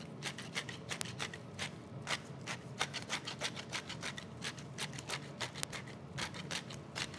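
Hand-held pepper mill being twisted, grinding peppercorns: a quick, irregular run of dry crunching clicks, several a second, that carries on throughout.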